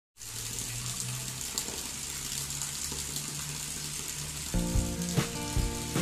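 Steady hiss of light rain falling, with faint drop ticks. Background music is under it, and about four and a half seconds in it grows louder, with a steady beat.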